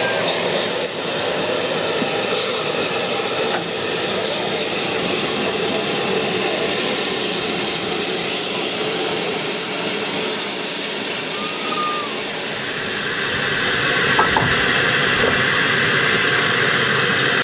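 GWR 5700-class pannier tank locomotive standing at rest with steam hissing steadily. The hiss swells a little about thirteen seconds in.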